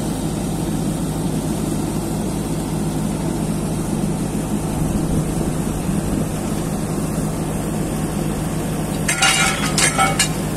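Workover rig's engine and drawworks running steadily as the traveling block is lowered. A few sharp metal clanks come about nine to ten seconds in.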